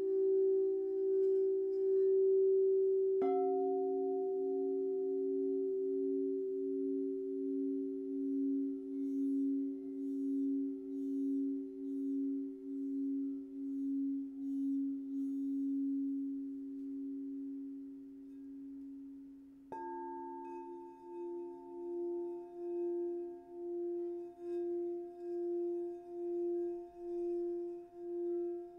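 Quartz crystal singing bowls ringing in long sustained tones with a steady wavering pulse. A bowl is struck about three seconds in and another at about two-thirds of the way, each adding a fresh tone over the fading one.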